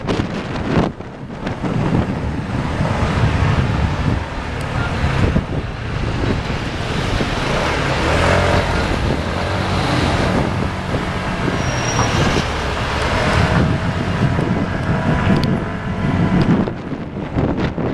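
Road traffic noise with wind buffeting the microphone, recorded from a vehicle moving through city streets.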